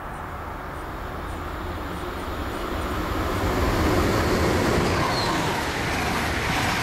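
Train approaching and passing through the station at speed: a rushing rumble of wheels on rails that builds steadily, is loudest about four to five seconds in, and stays loud as the carriages go by.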